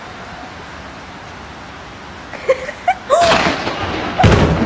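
Heavy rain falling steadily, then about three seconds in a loud crack of thunder from a close lightning strike, with a person's short cries, and a second loud crack about a second later.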